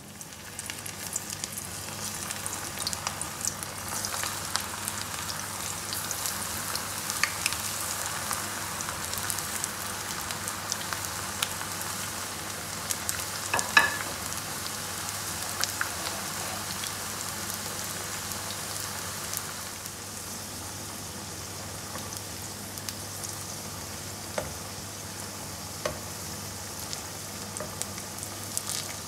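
Onion pakodas deep-frying in hot oil: a steady sizzle with scattered sharp crackles, the sharpest about halfway through. The sizzle eases slightly about two-thirds of the way in.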